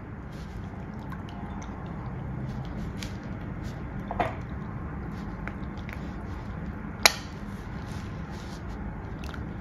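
Hot falooda-noodle batter being squeezed from a piping bag into a bowl of chilled water: soft wet squishing and dripping, with one sharp click about seven seconds in.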